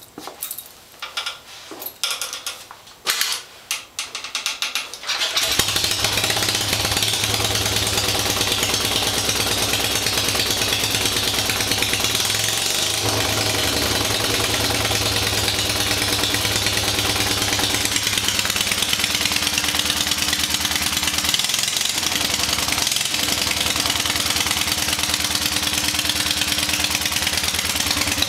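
Whizzer motorbike's single-cylinder four-stroke engine: a few seconds of clicking and clatter, then it starts about five seconds in and runs steadily at idle, with a couple of brief dips in pitch.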